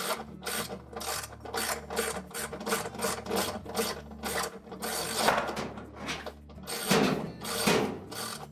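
Hand ratchet on a short extension working bolts out of a washer's outer tub: a steady run of rasping ratchet strokes, about three a second, with a few longer, louder strokes near the end.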